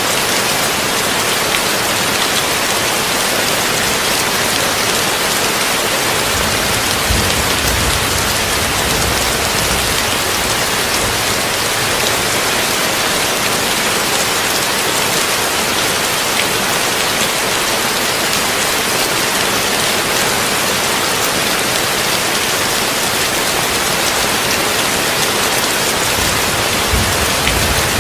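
Heavy rain drumming on a tin roof, a steady dense hiss blended with brown noise. Low rumbles of thunder swell about seven seconds in and again near the end.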